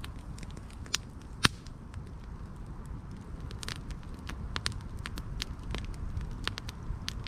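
Wood campfire crackling and popping throughout, with a sharp pop about a second and a half in.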